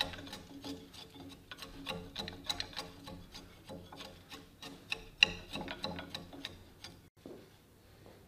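A flat steel chisel working inside a bored hole in an oak trunk, scraping and clicking against the wood several times a second. It stops about seven seconds in.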